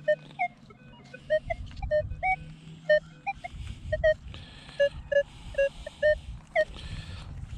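Metal detector beeping over and over with short tones, some rising in pitch, as it responds to a target being dug out, with two short spells of hiss near the middle.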